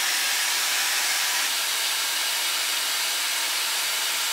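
Shark FlexStyle air styler running with its curling barrel attached on a hot setting, blowing a steady rush of air as a section of hair wraps around the barrel.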